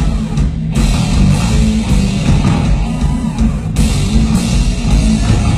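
Live rock band playing an instrumental stretch at full volume: electric guitar and drum kit.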